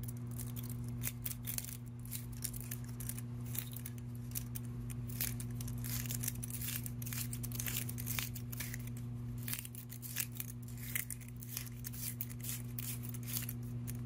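Supco flame sensor cleaner scraping along the metal rod of a gas furnace flame sensor: quick, irregular scratching and rasping as the rod is cleaned of deposits, over a steady low hum.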